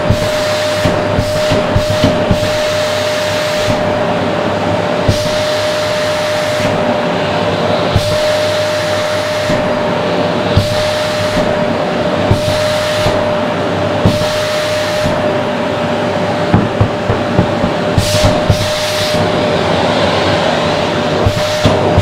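Vacuum cleaner running steadily with a constant whine while its hose nozzle is worked over cushion fabric. A higher suction hiss comes and goes as the nozzle moves, with scattered small knocks.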